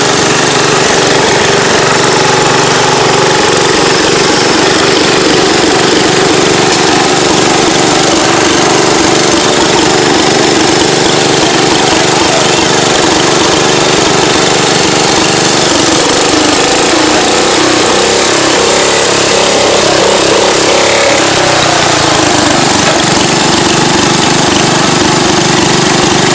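Massey Ferguson lawn tractor's engine running loudly and steadily under load as the tractor churns through mud. For several seconds past the middle the engine note wavers and shifts before settling again.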